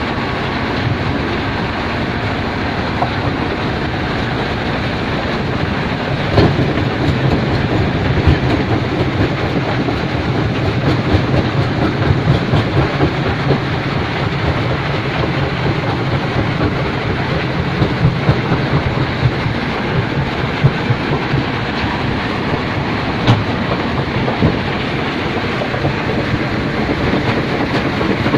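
Stone crusher and belt conveyor at an iron ore mine running under load, a loud steady clattering rattle of machinery and crushed rock, with a few sharper knocks.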